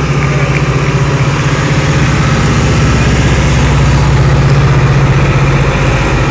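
Fire engine's diesel engine running as the truck rolls slowly past at close range: a steady low drone that grows a little louder as it passes, then eases slightly.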